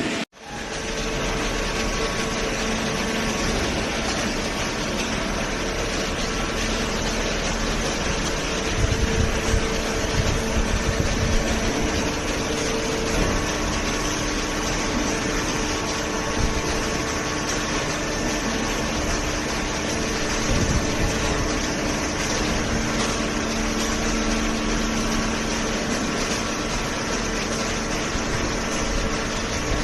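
Hydraulic cardboard baler running: its motor and hydraulic pump hum steadily, with a few low knocks about a third of the way in.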